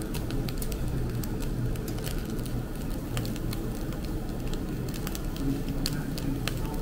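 Beef skirt grilling over hardwood charcoal: a steady sizzle with scattered sharp crackles and pops, over a low steady hum.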